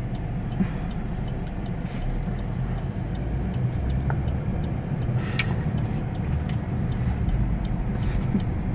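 Steady low rumble of a running vehicle, with a few faint small clicks.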